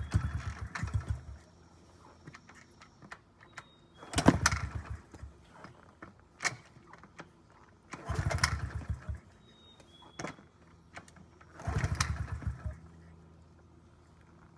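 2009 Honda CRF50F's small single-cylinder four-stroke engine being kick-started after two years unused: four kicks about four seconds apart, each turning it over in a chugging burst of about a second that dies away without the engine catching.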